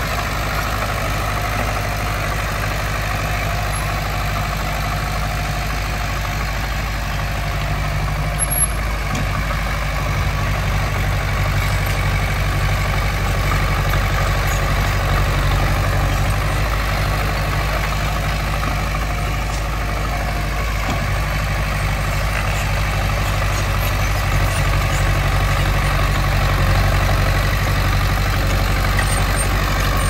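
Heavy diesel engine of earthmoving machinery running steadily with a low, even hum, growing a little louder about ten seconds in; a single short click a little after eight seconds.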